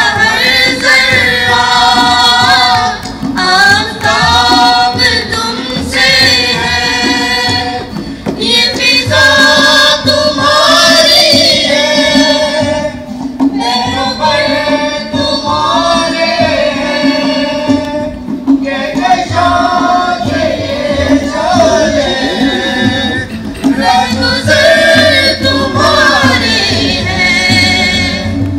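Singing of a Pakistani national song (milli naghma), the melody carried continuously over a steady sustained musical accompaniment.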